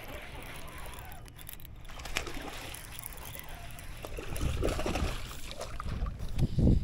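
Lake water sloshing and splashing at the side of a fishing boat, louder about four and a half seconds in and again near the end.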